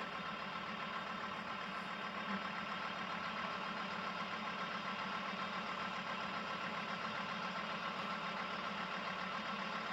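A steady, even engine-like drone with a hum of several fixed tones, unchanging throughout.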